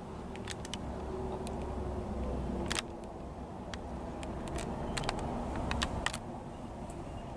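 Low steady rumble with scattered light clicks and ticks, from a hand-held camera being moved around inside a pickup truck's cab.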